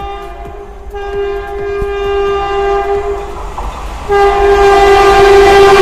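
Horn of an Indian Railways WAP-4 electric locomotive hauling an express at speed. It sounds in repeated blasts: one ends just after the start, a long one runs from about one to three and a half seconds, and a louder one starts about four seconds in. The train's running noise grows as it nears.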